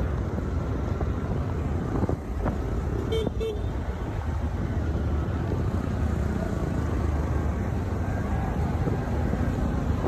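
Road traffic of motor tricycle taxis (TVS auto-rickshaws) and cars passing close: a steady low engine rumble, with a vehicle horn giving two short toots about three seconds in.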